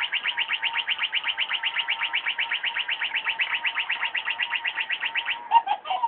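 Electronic chirping from a robotic toy mouse's sound chip: a fast, even string of high beeps, about nine a second, over a steady tone. It ends with a few lower blips and cuts off suddenly.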